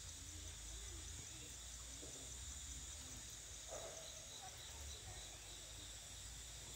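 Steady high-pitched insect chirring, with a low rumble underneath and a faint short sound about four seconds in.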